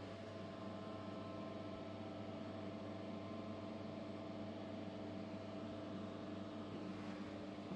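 Steady low hum with a few faint steady tones over room noise, the tones fading out near the end.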